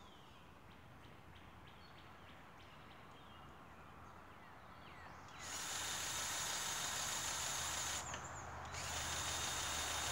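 Battery-powered grease gun motor whining as it pumps grease into a fitting on a crawler dozer, in two runs of about two and a half and two seconds with a short pause between. It starts about five and a half seconds in; before that only faint birdsong.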